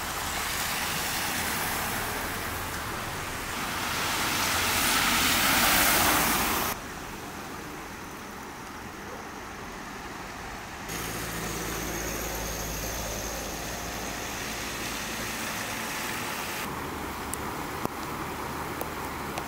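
A car drives past on a wet road, its tyres hissing on the water and growing louder over the first six seconds until the sound cuts off abruptly. Then comes steady outdoor street noise with traffic.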